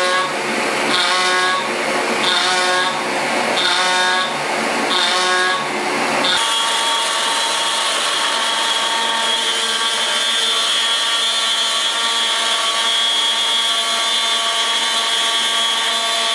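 CNC machine's spindle and end mill cutting aluminum, a high metallic cutting whine. For the first six seconds the whine swells and fades about every 1.3 seconds, then about six seconds in it settles into one steady whine.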